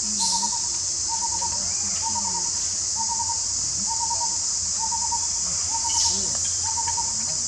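Steady high-pitched insect drone of forest insects, with a bird's short pulsing call repeated about once a second throughout.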